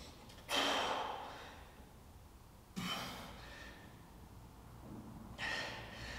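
A man breathing out hard three times, about every two and a half seconds, each breath starting suddenly and fading away: exertion breaths with each rep of a dumbbell row.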